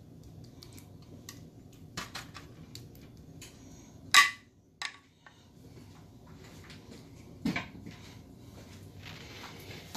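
Scattered short knocks and clatters of kitchen utensils and dishes, with one much louder knock that rings briefly about four seconds in and smaller ones around five and seven and a half seconds, over a faint low hum.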